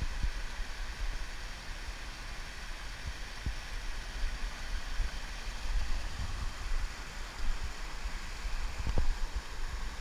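Stream water rushing down a small cascade between boulders, a steady hiss, with wind buffeting the microphone and a few light knocks.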